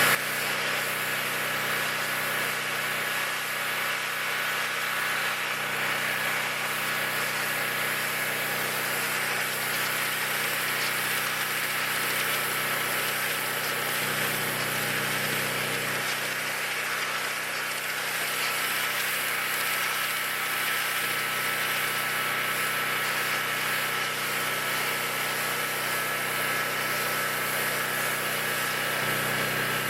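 Pressure washer running steadily, its engine droning under the loud hiss of the high-pressure spray from the standard wand tip as it blasts dirt off a deck.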